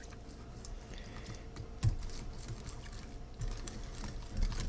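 Wire whisk beating a thin sauce in a bowl, its wires clicking rapidly and irregularly against the bowl's sides.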